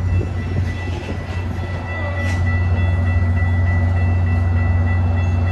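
Metra bilevel commuter train standing at a station platform: a steady low drone with a thin, steady high whine over it.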